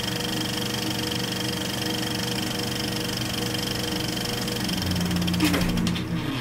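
Old film projector running with a steady mechanical whir and clatter. Near the end a lower hum swells in under it.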